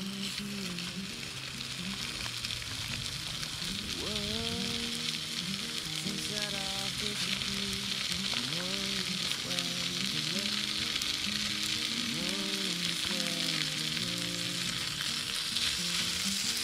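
Meat sizzling as it fries in a small camping pan, growing louder over the first few seconds. Background music plays over it.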